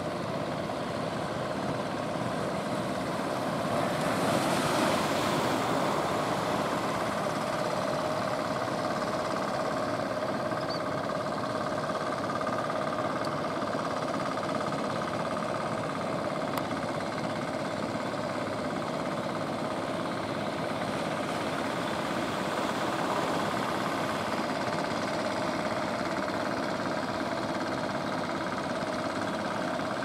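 A motor engine running steadily, a faint even hum over a constant rushing noise that swells a little about four seconds in and again near the end.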